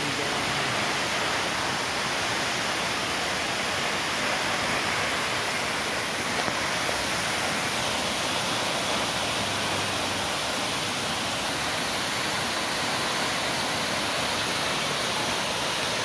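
A tall waterfall plunging into its rock pool: a steady, even rush of falling water that does not change.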